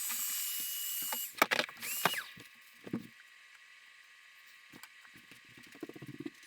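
Power drill running with a steady high whine, stopping about a second in, then a second short burst, followed by a few clicks and knocks of wood and tool handling.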